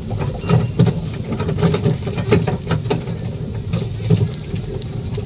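Small trackless road train rolling along paving: a steady low running rumble with frequent clicks and rattles from the carriage.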